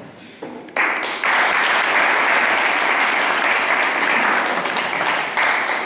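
Audience clapping, starting suddenly about a second in and dying away near the end.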